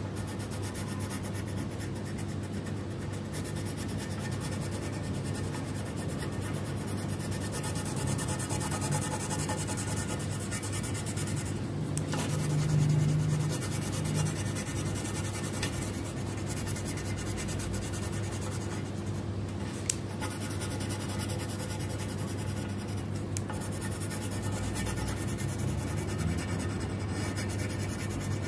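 Orange coloured pencil shading quickly back and forth on paper, a continuous scratchy rubbing of pencil lead on the sheet, over a steady low hum.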